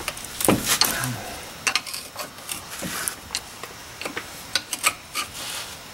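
Screwdriver and metal parts of a disc brake caliper clicking and scraping as the caliper and pads are pried at: an uneven run of sharp metallic clinks and taps.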